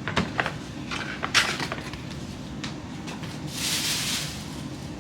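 New drinking cups and their packaging being handled: a few light knocks, then a short rustle of wrapping a bit past halfway.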